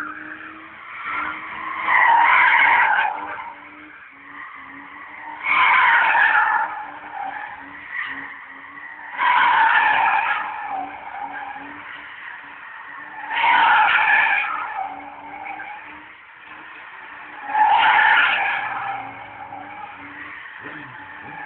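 BMW E30 3 Series drifting in circles: its rear tyres squeal in five long bursts, about four seconds apart, over the steady note of its engine.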